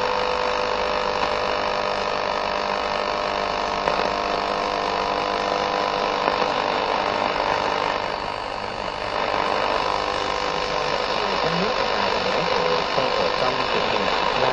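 AM radio receiver tuned step by step across the medium-wave band: steady static hiss with steady heterodyne whistles and weak, distant stations. About 11 seconds in, a station's programme starts to come through faintly.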